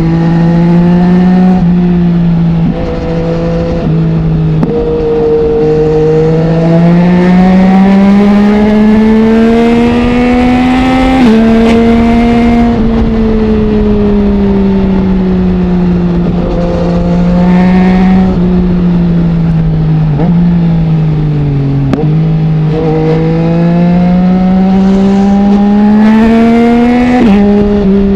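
2020 Yamaha MT-09's 847 cc three-cylinder engine through an Akrapovic full exhaust system run without its dB killer, accelerating and easing off along the road. Its pitch climbs steadily for several seconds, falls away, climbs again, and steps suddenly a few times at gear changes.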